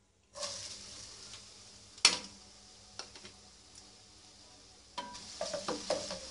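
Chopped onions dropped into hot oil in a pressure cooker, sizzling at once with a steady frying hiss. A single sharp knock about two seconds in, and near the end a wooden spatula stirring the onions, knocking and scraping against the pot.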